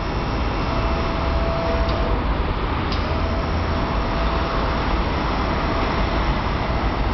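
Hydraulic tail lift at the rear of a Magirus fire engine folding up, its hydraulic pump running with a steady hum and a faint whine that comes and goes, with two light clicks about two and three seconds in.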